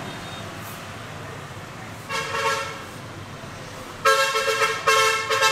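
Vehicle horn honking: one short toot about two seconds in, then several quick, louder toots from about four seconds on, over steady street traffic noise.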